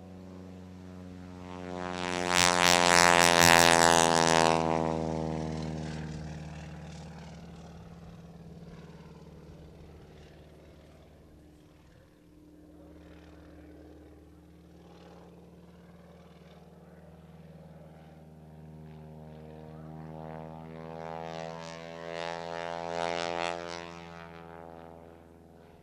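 Single-engine aerobatic biplane's piston engine and propeller flying by. It is loud about two to four seconds in, with the pitch dropping as it passes. It then fades, and swells again about twenty seconds in on a second pass before dying away near the end.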